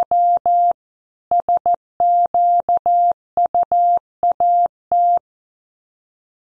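Computer-generated Morse code at 14 words per minute: one steady beeping tone keyed on and off in short dits and longer dahs, with brief pauses between characters and words. It stops about five seconds in.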